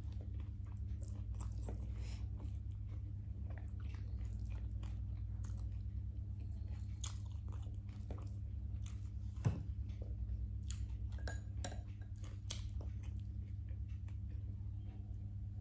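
A person eating rice and fried chicken close to the microphone: biting and chewing with crunches and many small mouth clicks, over a steady low hum, with one sharper click about nine and a half seconds in.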